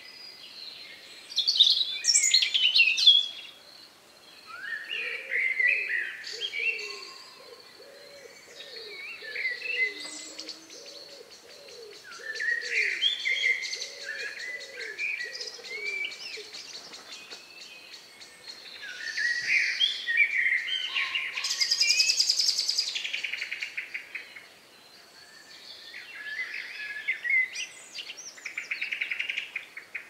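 Dusk chorus of several songbirds singing overlapping, varied warbling phrases, with a fast trill about two-thirds of the way through and again near the end. A slower series of low repeated notes sounds underneath during the first half.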